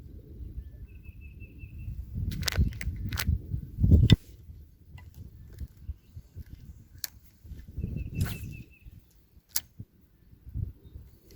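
Several sharp clicks over a low rumble, with two short runs of quick, high, evenly spaced pips.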